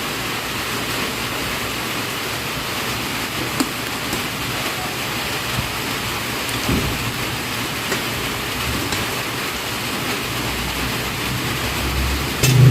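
Pot of soup boiling, a steady bubbling hiss with a few faint pops.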